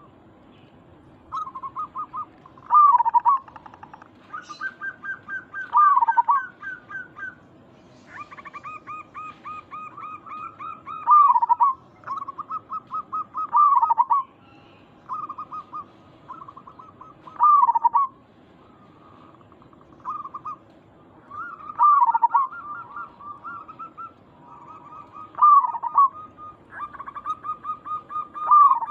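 Zebra doves (perkutut) singing: repeated phrases, each a quick run of short staccato notes ending in a louder, dipping coo, about every three to four seconds, with some phrases overlapping.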